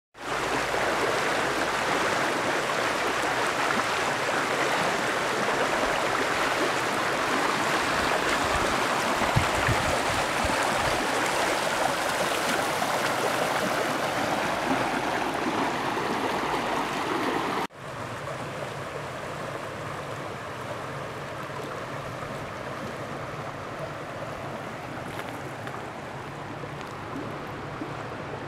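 Mountain trout stream running over a rocky bed, a steady rush of water. About eighteen seconds in it cuts to a quieter, gentler flow.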